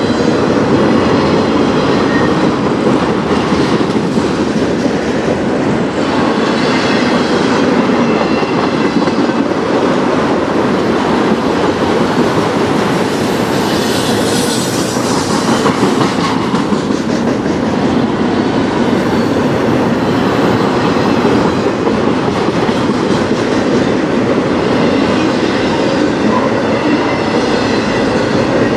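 Autorack cars of a passing CN freight train rolling by close up: steel wheels rumbling and clattering on the rails in a steady, loud din, with a brighter high-pitched wheel squeal rising about halfway through.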